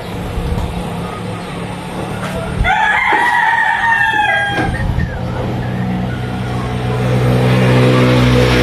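A rooster crows once, about three seconds in, a call of about two seconds that falls slightly in pitch at the end. Under it runs a steady low drone that gets louder near the end.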